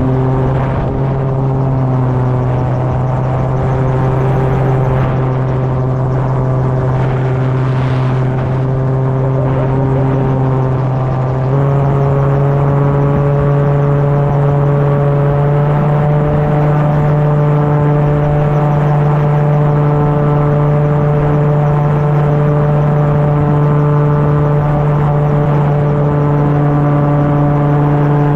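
Homemade gyrocopter's engine and propeller droning steadily in flight, heard from the open pilot seat with wind rush over it. About eleven seconds in the note steps abruptly to a slightly higher pitch and a little louder, and holds there.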